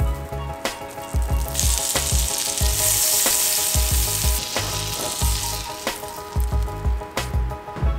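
Butter sizzling as it melts in a hot stainless steel frying pan, the hiss starting about a second and a half in and dying away after about five and a half seconds, over background music with a steady beat.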